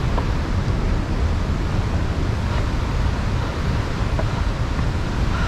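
Steady rush of water from the river falls, with wind buffeting the microphone as a low rumble.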